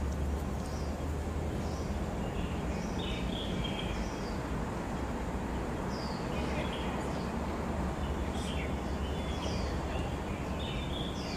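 A small bird chirping over and over, short falling calls about once a second, over a steady low outdoor rumble.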